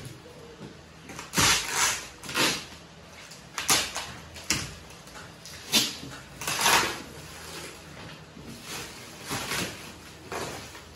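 Plastic stretch wrap on a shipping crate crinkling and tearing as it is cut with a box cutter and pulled away by hand, in a string of short rustling bursts.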